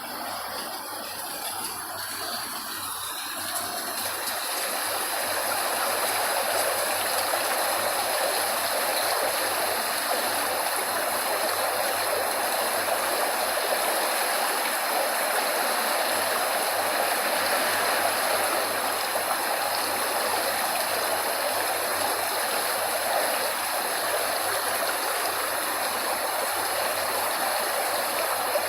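Steady rushing water, a stream or small waterfall, fading up over the first few seconds and then running on evenly.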